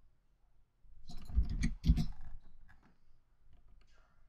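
Computer keyboard keys and mouse buttons clicking, a cluster of taps about one to two seconds in and a few lighter ones near the end.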